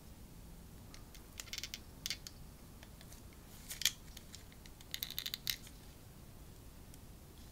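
Hands handling a plastic action figure and its packaging: a few short bursts of light plastic clicks and crinkling, with one sharper click a little past the middle and a quick run of clicks about two-thirds of the way through.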